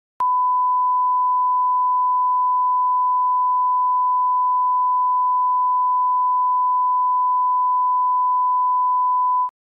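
Emergency alert attention tone: a single steady electronic tone near 1 kHz, lasting about nine seconds and cutting in and out abruptly.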